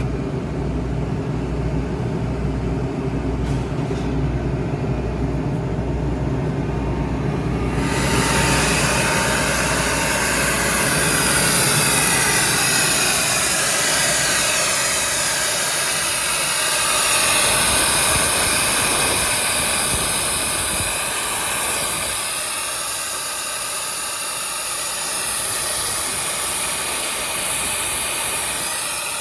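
Kaeser AS 30T 30 hp rotary screw air compressor running with a low, evenly pulsing hum; about eight seconds in a loud steady hiss of rushing air comes in and the low hum fades.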